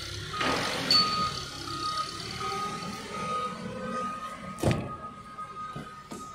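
An electronic beeper sounding a repeated high beep, with rustling early on and one sharp knock about four and a half seconds in.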